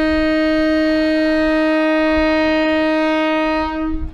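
Kurobe Gorge Railway locomotive's horn sounding one long, steady note, cutting off near the end: the train's departure signal.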